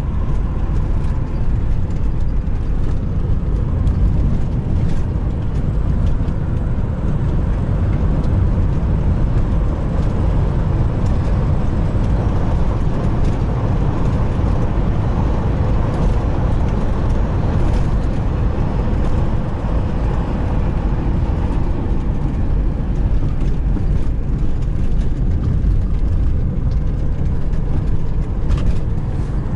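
Steady road and engine noise of a moving car heard from inside its cabin.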